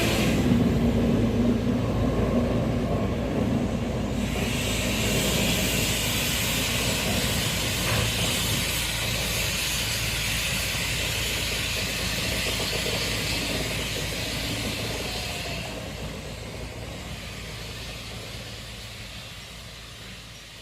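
A train running on a heritage railway with a steady low rumble. A steady hiss joins it about four seconds in and lasts about ten seconds. The sound then fades away toward the end.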